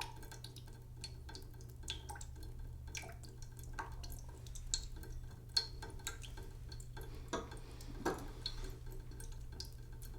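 Water dripping and trickling slowly into a cooking pot in a sink, with irregular sharp plinks over a steady low hum.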